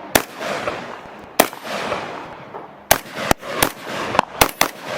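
Rifle fired shot after shot: two spaced shots in the first second and a half, then a quicker string of about seven shots, roughly three a second, over the last two seconds. Each crack trails off in an echo.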